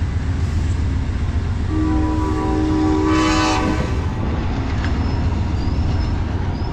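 Amtrak passenger cars rolling past with a steady low rumble. About two seconds in, the locomotive horn sounds one held chord for about two seconds, with a brief hiss near its end.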